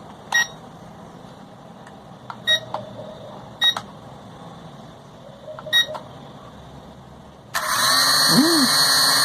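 Four short electronic beeps from an E525 toy drone and its remote as they are powered up. About three-quarters of the way in, the drone's small rotor motors start suddenly and run with a loud whine, spun up to see which motor is faulty.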